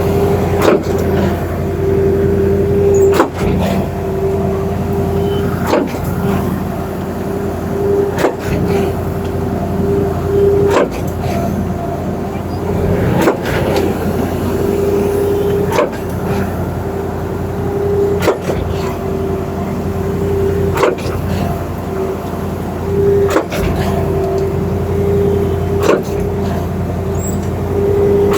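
Concrete pump truck running steadily, with a sharp knock about every two and a half seconds as the pump switches stroke.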